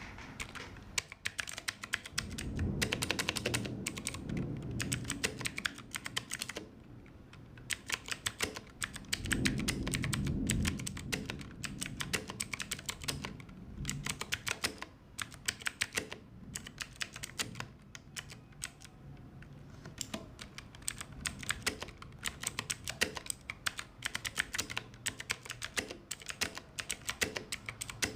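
Typing on an Ajazz AK33 mechanical keyboard with clicky blue switches: a fast run of sharp key clicks with brief pauses. Twice the typing gets heavier, with a low thud under the clicks for a few seconds.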